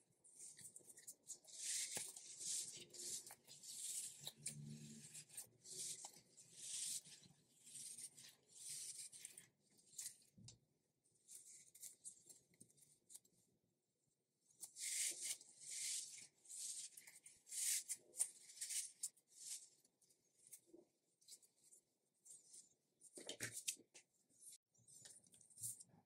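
Hands squeezing and kneading a soft silicone stretchy gorilla toy: irregular bursts of dry, hissy rubbing of skin against the silicone, with two quieter lulls and a soft knock near the end.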